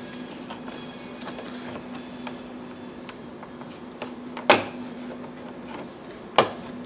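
Two sharp plastic snaps, about two seconds apart, from interior trim clips releasing as a car's trim panel is pried off, with a few lighter ticks and a faint steady hum behind them.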